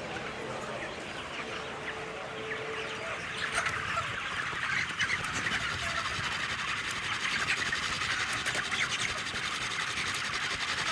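A dense crowd of broiler chickens, many overlapping short peeps and clucks blending into one continuous din that grows louder about four seconds in.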